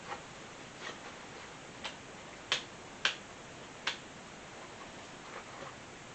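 A series of sharp, light clicks and taps from hard parts being handled during lawn mower carburetor work: about six over the first four seconds, the loudest two about halfway through, then two faint ones near the end.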